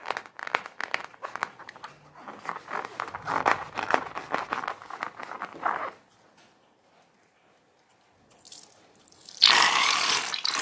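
A rubber balloon filled with slime is handled and squeezed, its skin rubbing against fingers in a rapid run of small crackles and creaks for about six seconds. Near the end the slime is pressed out through the balloon's neck into a dish of liquid in a loud wet rush lasting about a second.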